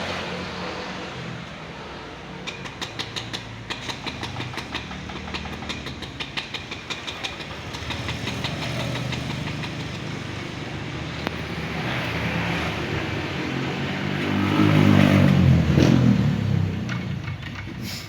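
Motor vehicle engine running, with a run of quick regular clicks in the first few seconds. A vehicle passes close about three-quarters of the way through, growing loud and then fading.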